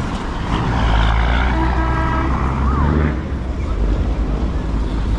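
Bus engine and road noise: a steady low rumble, with faint voices in the first half.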